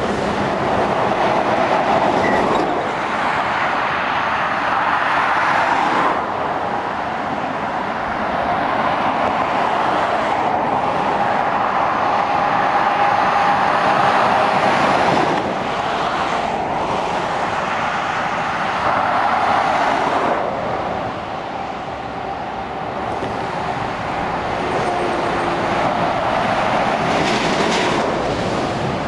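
Continuous motorway traffic: lorries and cars passing with tyre noise and diesel engine sound that swell and fade as each vehicle goes by.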